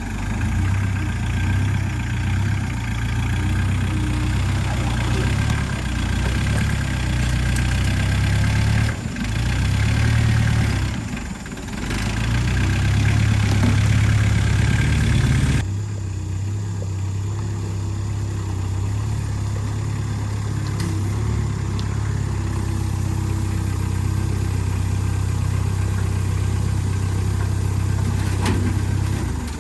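Agricultural vehicle's engine running continuously. It swells and dips a few times in the first half, then changes abruptly to a steadier, slightly quieter run about halfway through.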